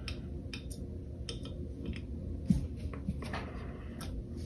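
Scattered faint clicks and taps of small steel pistol parts and a punch being handled against the frame, as the sear and disconnector are worked into place and their pin holes lined up. A low steady hum runs underneath.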